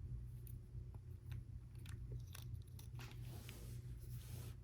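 Lego Technic plastic pieces being handled and pressed together: faint scattered clicks and crunchy rustling of plastic parts, over a steady low hum.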